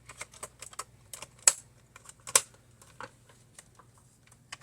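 Rapid, irregular light clicks and taps, with two sharper clacks about one and a half and two and a half seconds in: a screwdriver, screws and plastic parts of a Dell Inspiron 8600 laptop being handled during disassembly.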